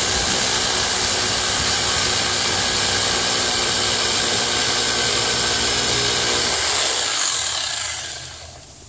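Electric drill boring into an old concrete pier, a loud steady whir that fades out near the end.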